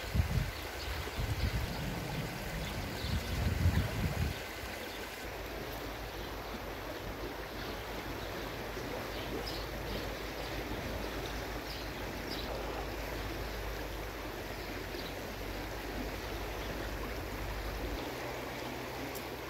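River water flowing steadily, a continuous rushing. For the first four seconds or so, wind buffets the microphone in low gusts.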